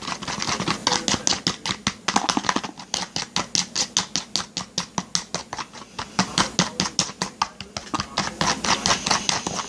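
Homemade slime of glue, dish soap and salt being mixed by hand: quick, even clicking and scraping strokes, about four a second, with a short pause around two seconds in.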